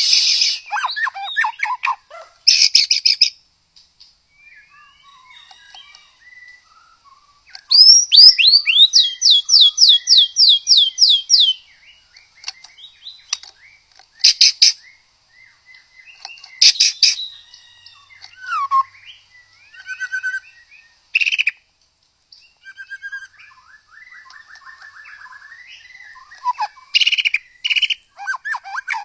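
White-rumped shama singing a varied song of loud whistled phrases and sharp, clipped notes broken by short pauses, with a fast run of about ten rising notes, some three a second, about eight seconds in.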